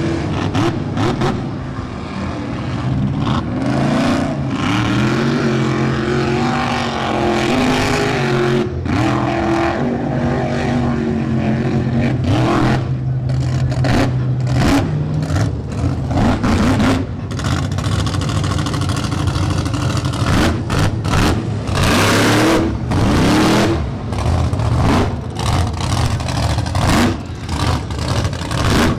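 Mega truck's supercharged alcohol-burning engine revving loudly while driving through deep mud. The pitch rises and falls over the first dozen seconds, holds steady briefly, then breaks into a run of sharp throttle blasts for the rest.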